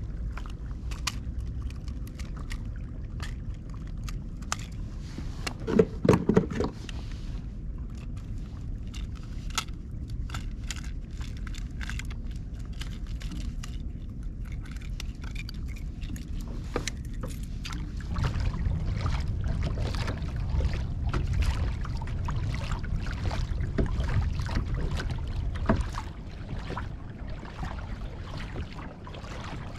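Many small clicks, rattles and scrapes of fishing gear and a freshly caught grouper being handled aboard a kayak, with a louder couple of knocks about six seconds in. A low rumble joins in over the second half.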